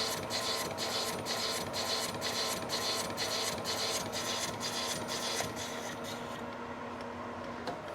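Lathe cutting steel plate with a carbide insert, a rhythmic cutting noise at about three strokes a second that fades out after about six seconds. A steady machine hum runs under it and stops near the end. The machinist believes the insert's tip is chipped and needs indexing.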